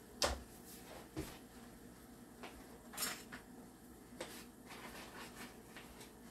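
A spoon scooping flour from a paper flour bag and handling a small bowl: a sharp clink or knock just after the start, a few lighter clicks, and a brief scraping rustle about three seconds in.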